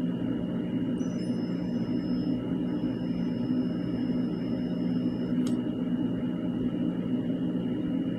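Astro 7601 cordless hot stapler buzzing with a faint high whine while its heated staple is burned into the plastic, over a steady low hum. The whine stops about five seconds in with a short click.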